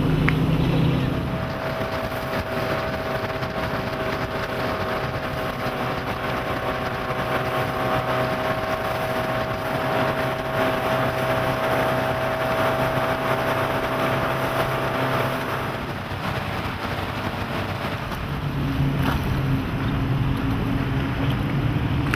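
Motorboat's MerCruiser 3.0L four-cylinder sterndrive running steadily at speed, with water rushing along the hull and wind on the microphone. The engine note shifts about a second in and again around 18 seconds in.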